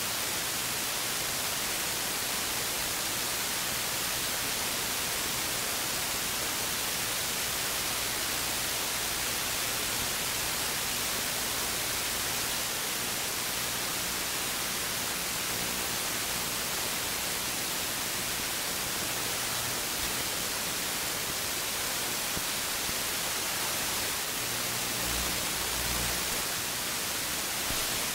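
Steady, even hiss of radio static with no signal or voice on it.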